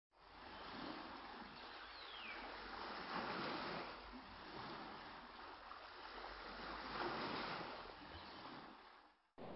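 Road and wind noise inside a moving car's cabin, a steady rush that rises and falls in level, with a faint falling whistle about two seconds in. It cuts out abruptly near the end.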